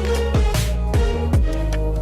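Electronic music with a deep bass and a drum hit with a falling bass sweep about every half second.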